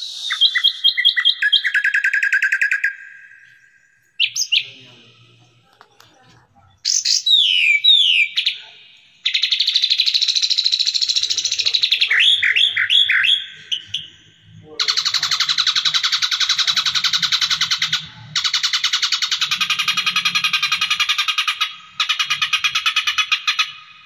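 Recorded songbird song played as a masteran tutor track for cage birds. First come short phrases of quick repeated notes and downward-sliding whistles, then from about 15 seconds in long, dense, rapid trills broken by brief pauses.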